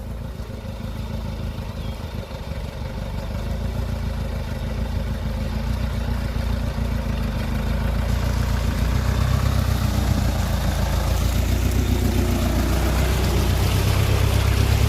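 Motor vehicle engine running steadily, growing gradually louder throughout.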